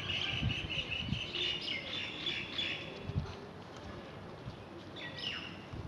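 Small birds chirping in quick repeated runs, with a few falling chirps near the end, over a few soft low knocks.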